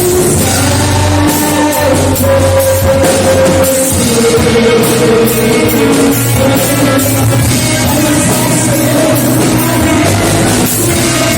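Loud live worship music: a band with electric guitar, bass and drums accompanying a singing voice.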